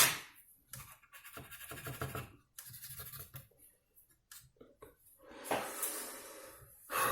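Intermittent scratching and scraping with a few light clicks from hands and tools working on an opened laptop.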